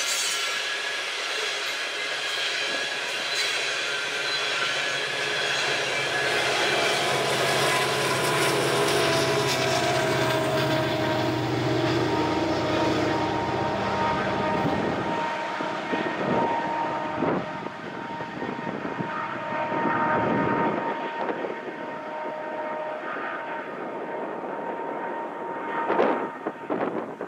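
Loaded coal hopper cars rolling past on the rails: a steady rumble and clatter of steel wheels that thins out after about halfway, leaving steady high tones and scattered knocks.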